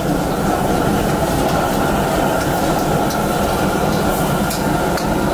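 Steady, loud background din of a busy street-food strip, a continuous blur of crowd and cooking or street noise, with a few faint clicks.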